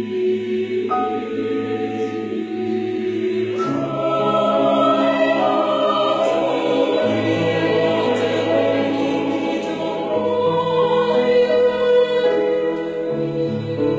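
Mixed choir singing in harmony with piano accompaniment, in long held chords that swell louder about four seconds in.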